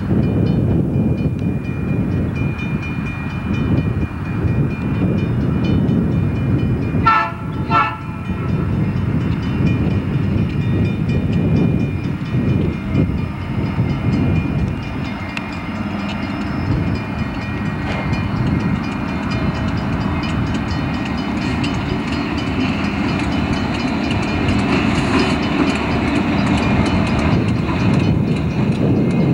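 Diesel locomotives leading a freight train run past with a steady engine rumble and rail noise. The horn sounds two short blasts about seven seconds in.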